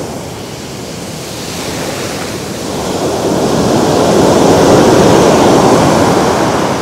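Ocean surf breaking and washing up the sand close by, a rushing wash that swells to its loudest a little past halfway and then eases off.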